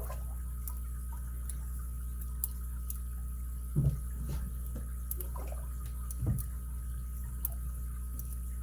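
Faint, scattered metallic clicks and ticks of a lock pick working the pins inside an ABUS 83CS/55 padlock, with two duller low knocks in the middle, over a steady low hum.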